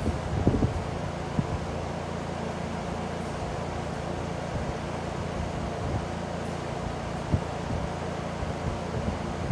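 Electric fan running with a steady hum. A few soft low thumps come near the start and once more later on.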